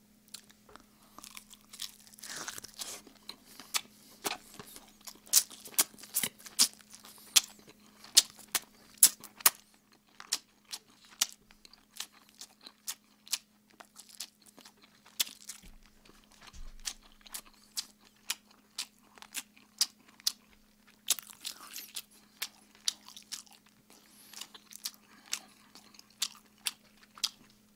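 A person chewing and lip-smacking on a roasted chicken drumstick close to the microphone: a dense run of irregular wet clicks and smacks, several a second, done on purpose for a mukbang. A faint steady hum sits underneath.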